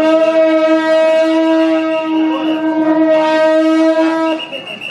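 A wind instrument of a temple procession blowing one long steady note, held about four seconds and stopping shortly before the end.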